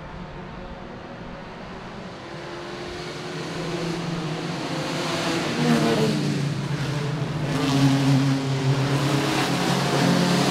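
Vintage under-2-litre production sports cars racing past, their engines getting steadily louder as they approach. The engine pitch shifts a few times as they come through.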